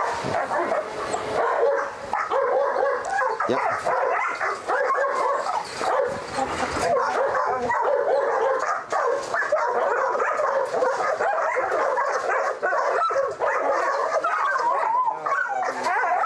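Dogs barking, yipping and whining without a break, the calls overlapping.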